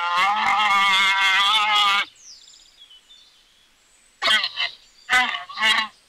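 Alpaca giving a honking, braying call: one long, wavering call that stops about two seconds in, then after a pause three short calls near the end.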